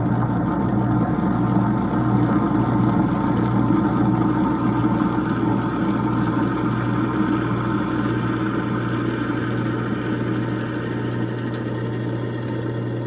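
Kitchen sink garbage disposal running with hot water flowing through it, grinding up a foaming cleaner pod: a steady motor hum under the rush of water and churning, easing slightly near the end.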